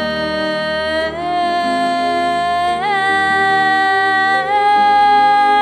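A woman singing, drawing out one long note on the word "to" that steps up in pitch three times as she holds it.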